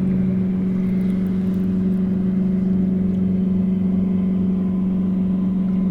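Electric trolling motor running at a steady speed, a constant low hum, while pulling planer boards.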